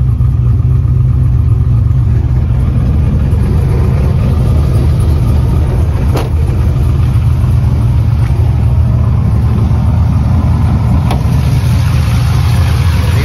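Pickup truck's engine idling steadily with a deep, loud low rumble. A single knock sounds about six seconds in.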